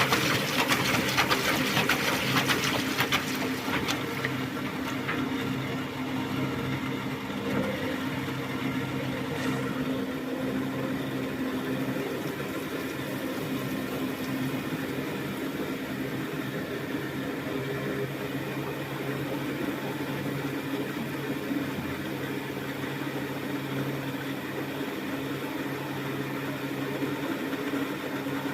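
Thomson washing machine: water rushing in for about the first four seconds, then a steady motor hum as the machine runs.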